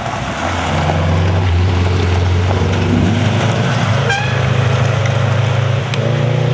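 Rally car engines running at a fairly steady pitch on a gravel forest road, the drone shifting in pitch a couple of times, with a brief high chirp about four seconds in.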